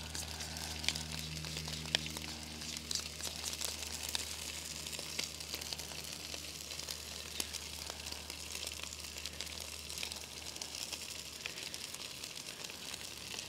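Sausages sizzling and spitting in a hot skillet: a steady hiss peppered with sharp crackles, over a low steady hum.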